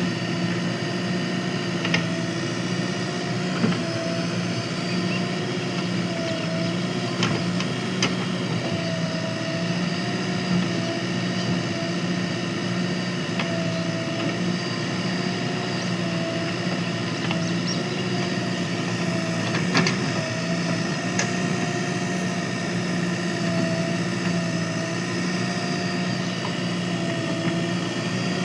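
JCB 3DX backhoe loader's diesel engine running steadily while digging, its pitch wavering slightly every few seconds as it works. A few short sharp knocks stand out, loudest about twenty seconds in.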